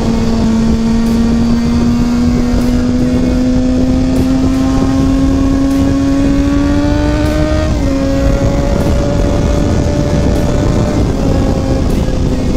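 Kawasaki Ninja ZX-6R's inline-four engine running at steady highway speed, its note rising slowly and then dropping slightly about eight seconds in before holding steady, with wind rushing over the helmet microphone.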